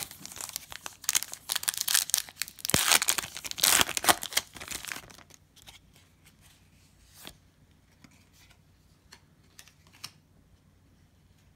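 A Panini Prizm football card pack's wrapper being torn open and crinkled for about five seconds, then a few faint ticks as the cards inside are handled.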